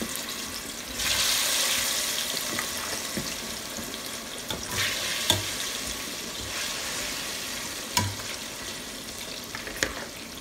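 Sliced plantains deep-frying in hot oil, a steady sizzle that swells as fresh slices go in about a second in and again near five seconds. A few sharp metal clinks of the spoon and skimmer against the pot.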